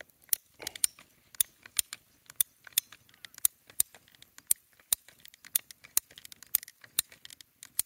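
Ratcheting PVC pipe cutter clicking steadily, about three sharp clicks a second, as its handle is pumped and the blade ratchets through a PVC pipe.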